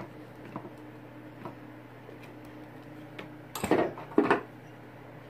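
Pliers snipping through copper electrical wire with a sharp click, then a few faint ticks and two short clattery rustles of tools and wires being handled, about three and a half and four seconds in. A steady low hum runs underneath.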